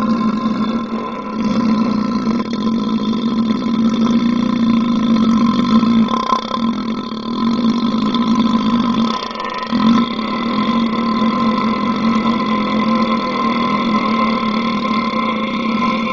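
A person's very long belch, a steady low-pitched drone held without a break for breath, dipping briefly about a second in and again twice around nine to ten seconds in.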